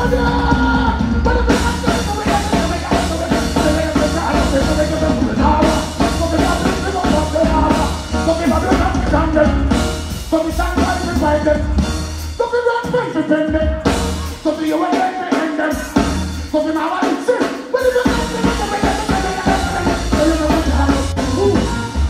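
Live reggae band playing through a PA, with heavy bass and drums, as a male vocalist sings and chants into a microphone over it.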